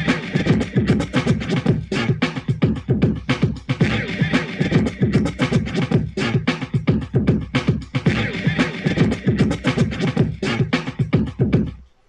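Music played through an Awei Y370 Bluetooth party speaker: a busy, percussive beat-driven track that stops abruptly just before the end.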